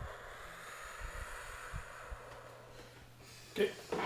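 Faint handling noise of a handheld phone camera: a soft, steady rustle with a few low thumps over a low hum. A short burst of voice comes near the end.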